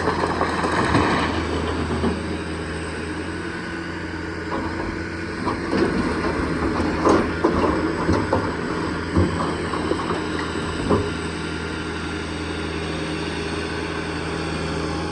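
A large engine running steadily, with a few short knocks and clanks about midway.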